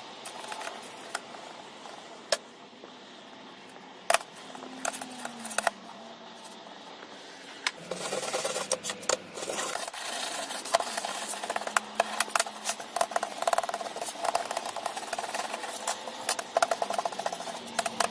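Scraping and rubbing with scattered small clicks and knocks, sparse at first and becoming busier and steadier about eight seconds in.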